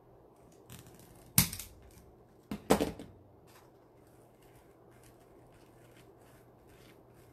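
Deco mesh being handled and scrunched: a few short crinkly rustles and knocks, the loudest about one and a half seconds in and a pair near three seconds, then faint rustling.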